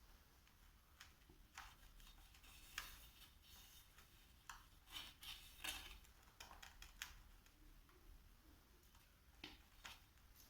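Near silence with a few faint scattered clicks and short scrapes, bunched between about two and a half and seven seconds in and again near the end.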